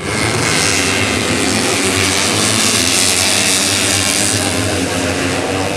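Several modified 130 cc underbone racing motorcycles running loudly together, a steady, dense engine drone.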